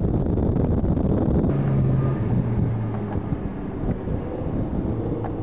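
Wind buffeting the microphone through the open window of a 4x4 driving over desert sand, over the low rumble of the vehicle. About a second and a half in, a steady engine drone comes through and the wind noise eases a little.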